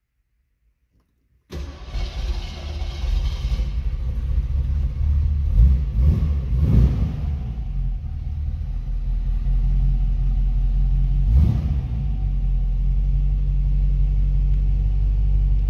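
Supercharged 289 V8 of a 1963 Studebaker Avanti R2, heard from inside the cabin. The engine comes in suddenly about a second and a half in and then runs steadily, with a few brief revs in the middle and one more later on.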